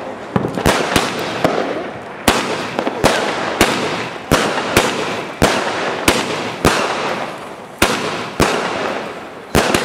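Fireworks going off: a rapid series of sharp bangs, about one every half second to second, with steady crackling between them.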